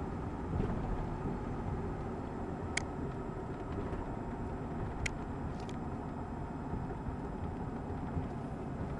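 Steady engine and road noise inside the cab of a 2002 Ford F250 with a 5.4-liter gas V8, driving at road speed. A few faint sharp clicks sound about three and five seconds in.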